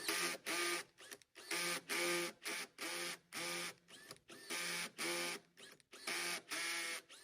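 Cordless drill with a tap in its chuck, run in a series of short bursts of the motor, a dozen or so, each under half a second, to cut threads in the metal for the panic device's mounting screws.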